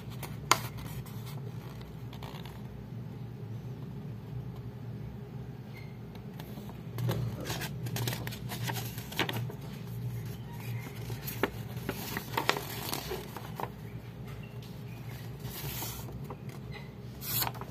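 Cards and card packaging being handled: scattered light clicks and scrapes over a steady low hum, a little busier about seven seconds in and again near the end.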